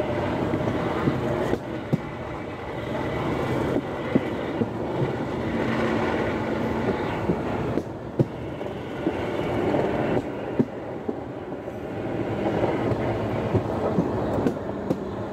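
Motorized rail cart (motorodillo) running along the track: a steady rolling and motor noise, with sharp knocks every second or two as the wheels cross rail joints.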